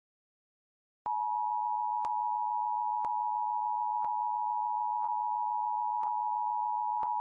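Emergency Alert System attention signal: a steady two-tone alarm (853 and 960 Hz) that starts about a second in after dead silence, heralding a tornado warning, with a faint tick about once a second.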